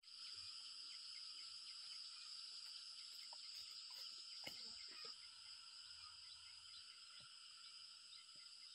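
Faint, steady chorus of insects buzzing at several high pitches at once, with a few soft clicks about halfway through.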